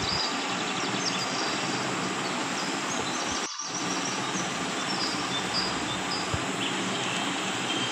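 Steady noisy background hiss with a few faint high chirps, cutting out briefly about three and a half seconds in.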